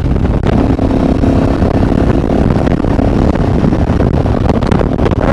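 Sinnis Terrain 125's single-cylinder engine running through a full stainless Torro exhaust while riding, under a steady low rumble of wind and road noise on the microphone.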